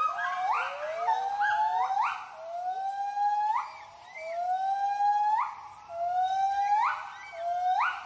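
White-handed gibbon's territorial hooting call: a series of long whoops, each gliding upward and ending in a sharp rising sweep. The notes come shorter and closer together near the end.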